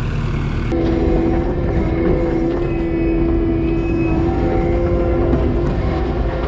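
Kubota SVL90-2 tracked skid steer working under load: the diesel engine rumbles, and about a second in a steady high whine starts abruptly and holds at one pitch.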